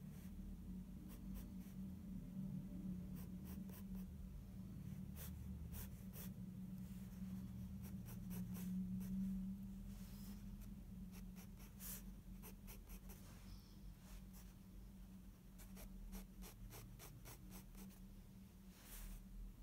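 Graphite pencil scratching on sketchbook paper in many short, quick strokes, the light hatching of fur, over a low steady hum.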